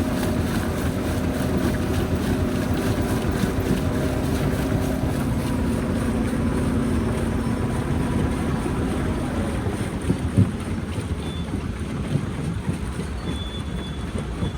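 Rock-crusher machinery running with a steady low rumble and engine hum. The hum fades about nine seconds in, and there is a single knock about a second later.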